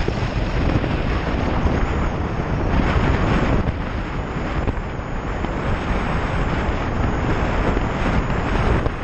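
Wind rushing over a motorcycle helmet camera's microphone while riding, a steady dense noise with the motorcycle's engine and road noise underneath.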